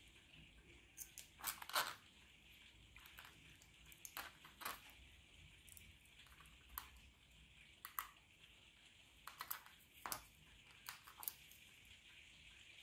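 Small pliers working a steel paper-clip wire as it is bent into a hook: a scatter of faint, sharp metal clicks and scrapes, the loudest about two seconds in.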